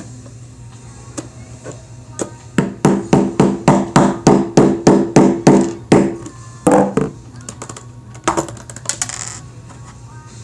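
Small hammer tapping Rubik's cube pieces into place: a quick run of about a dozen evenly spaced taps, about four a second, each with a short ring, followed by a couple of single knocks.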